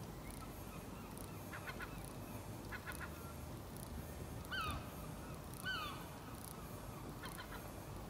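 Two short honk-like calls, each falling in pitch, about a second apart in the middle, over a faint steady background hiss with a few short, faint chirps.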